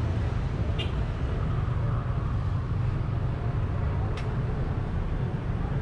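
Steady low rumble of street traffic, with two faint sharp clicks about a second in and about four seconds in.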